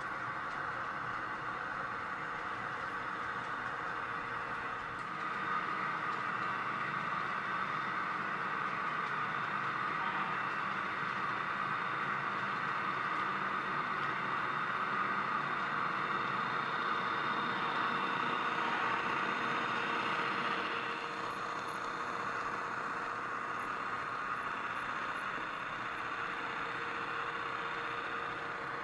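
HO-scale model passenger train running along the track: a steady mechanical whir of small motors and metal wheels on the rails. It grows a little louder about five seconds in and eases off again after about twenty seconds.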